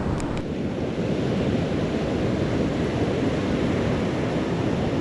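Ocean surf washing steadily against the shore, with wind buffeting the microphone. A couple of faint clicks come just after the start.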